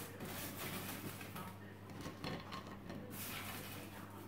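Oven-baked crinkle-cut fries being picked off a parchment-lined baking tray and set on a ceramic plate: soft, irregular rustles of the paper and light taps of the fries landing, over a steady low hum.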